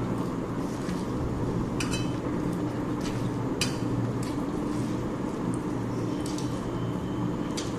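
Dishes and cutlery clinking now and then as a meal is eaten, a few short sharp clicks over a steady low background hum.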